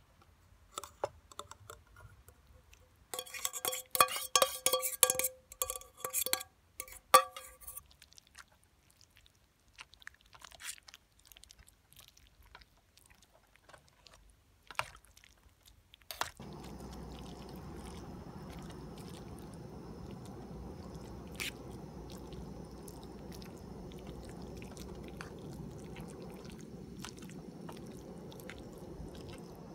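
A metal spatula scrapes and clinks against a stainless cup, ringing, then a fork stirs egg through spaghetti in an aluminium mess tin with small wet clicks and scrapes. About 16 seconds in, the butane cassette-gas burner under the tin comes on and runs with a steady hiss to cook the egg sauce.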